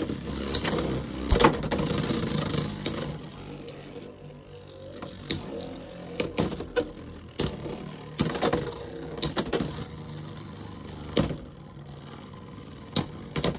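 Two Beyblade X tops, Wyvern Gale and Rhino Horn, spinning against each other in a plastic Beyblade stadium. A steady whir is broken by sharp, irregular clicks as the tops strike each other and the stadium wall.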